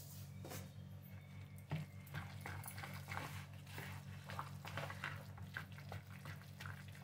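Steel spoon stirring a thick, wet semolina and vegetable batter in a plastic bowl: irregular squishing and scraping strokes. A steady low hum runs underneath.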